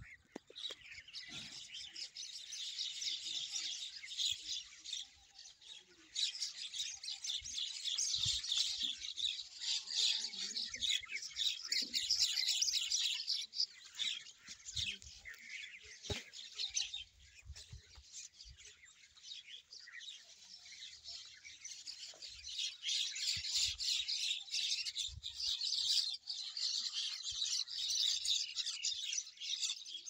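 A flock of small birds at their holes in a mud-brick wall, chirping and chattering nonstop with many calls overlapping. The chatter thins out for several seconds in the middle, then builds up again.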